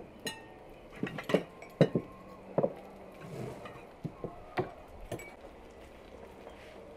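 Wine glasses and plates set down on a table: a string of clinks and knocks, most in the first three seconds and a few more around four to five seconds in, the first ringing briefly like struck glass.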